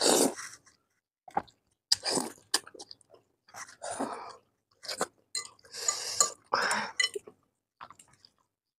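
Close-miked chewing of spicy ramen noodles in irregular short bursts, with silent gaps between.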